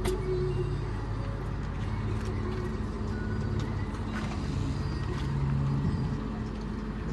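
Heavy diesel engine running steadily under load, a low drone that swells slightly about five seconds in.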